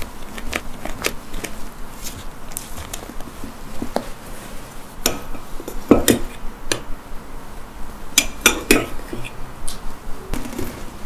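A metal spoon and a fine-mesh metal sieve clink and tap against a glass jar and a glass bowl as cocoa powder is scooped and sifted. The light taps come irregularly, with the loudest knock about six seconds in and a quick run of clinks about eight seconds in.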